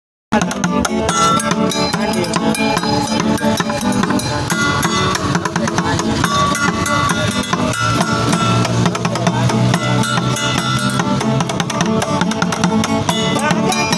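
Background music with drums and percussion, starting abruptly just after the beginning.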